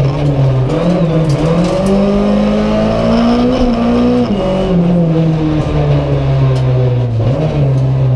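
Renault Clio Ragnotti's 2.0-litre four-cylinder engine heard from inside the stripped, caged cabin under hard acceleration, its pitch climbing for a couple of seconds. About four seconds in the revs drop sharply at a gear change, and the engine then runs on at steadier, lower revs.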